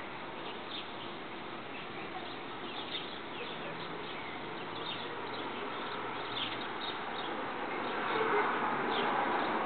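Outdoor background: scattered short bird chirps over a steady hiss. A broader noise swells louder near the end.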